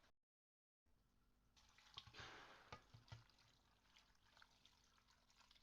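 Near silence, cut to dead silence for most of the first second, with a faint hiss and a few light clicks between about two and three seconds in.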